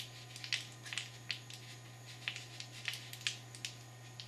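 Scattered light clicks and taps from a pistol and camera being handled, irregularly spaced, over a steady low hum.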